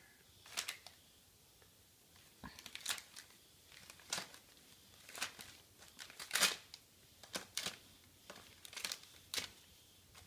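Red gift wrapping paper being torn and crinkled by a toddler's fingers: short, irregular rips and crackles about once a second, the loudest a little past halfway.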